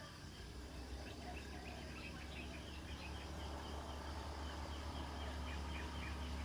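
A bird chirping rapidly and repeatedly over a low, steady rumble of distant traffic or an engine, which grows louder toward the end.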